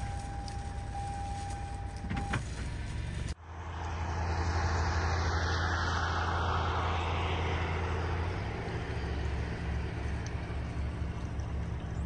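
Steady rushing noise of a passing vehicle with a strong low hum, starting abruptly a bit over three seconds in. Before it, quieter outdoor background with a thin steady tone for about two seconds.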